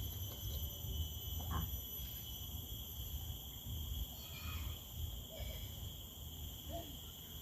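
Insects chirring in a steady high drone over a low rumble, with a few faint brief sounds.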